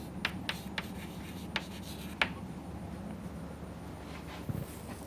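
Chalk writing on a chalkboard: several sharp taps and scratches of the chalk over about the first two seconds, then a soft low thump near the end, over a low steady hum.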